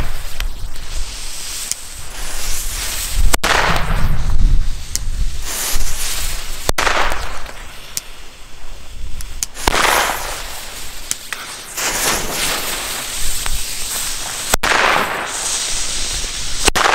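Weco Color Cracker firecrackers going off one by one: about five loud, sharp bangs a few seconds apart, each echoing away over about a second.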